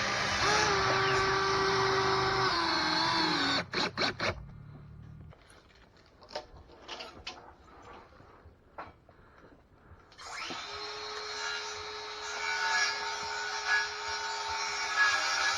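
Power tool motor running with a steady whine, winding down and stopping a few seconds in, followed by a few sharp knocks and scattered small clicks. The motor starts again about ten seconds in and runs steadily.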